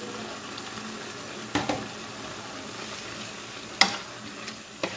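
Wok of saucy noodles and fresh cabbage sizzling steadily on the stove, while a spatula stirs it and knocks against the pan four times; the sharpest knock comes about four seconds in.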